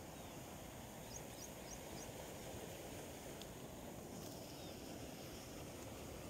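Steady low outdoor background noise, with four short high chirps about a second in and a faint tick later on.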